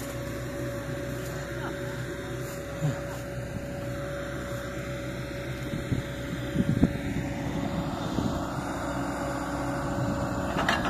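Heavy diesel machinery engine running steadily, with a few sharp knocks about six to seven seconds in.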